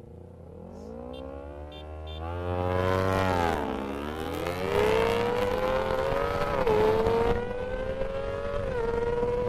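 Kawasaki Ninja ZX-25R's 250 cc inline-four accelerating hard from a standing start in a drag launch. Its pitch climbs steadily and dips at each upshift, about four times, starting around four seconds in. Wind rushes over the microphone during the run.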